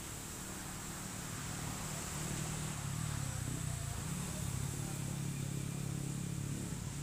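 An engine running steadily as a low hum, growing louder over the first two or three seconds and then holding, under a steady hiss.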